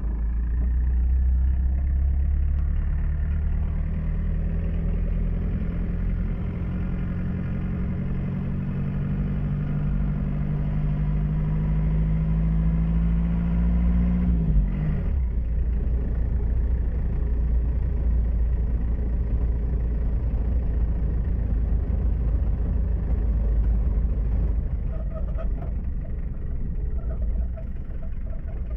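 Motor vehicle engine running with a steady low rumble, its pitch creeping up for the first half and then dropping sharply about halfway through.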